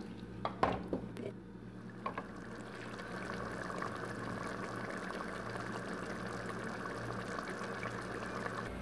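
A wooden spoon knocks a few times against a pot of thick curry sauce in the first two seconds. After that the sauce simmers on low heat with a steady, fine bubbling crackle, over a low steady hum.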